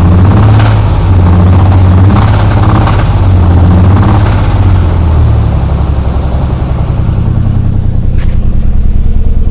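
1993 Nissan 300ZX's non-turbo 3.0-litre V6 running with the revs held up and rising and falling, then dropping back to an even idle about five seconds in. It carries a knocking noise at higher revs that the owner takes for a worn crankshaft rod bearing.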